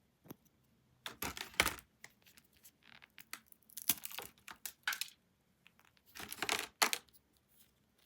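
Cookie packaging being torn open and crinkled in three short bursts, with small clicks between them.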